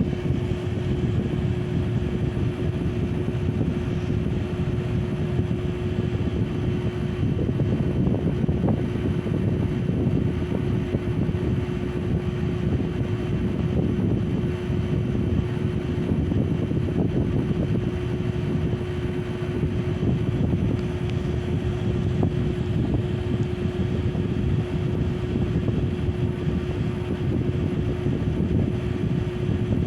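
Small Mabuhay Star ceiling fan running steadily: a constant motor hum with the blades pushing air past the microphone as a low rushing noise.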